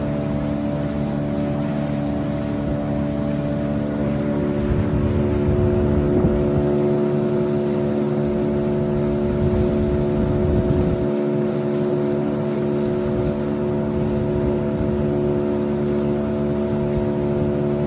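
Boat motor running steadily at an even speed, a constant droning hum that does not change pitch, with an uneven low rumble beneath it.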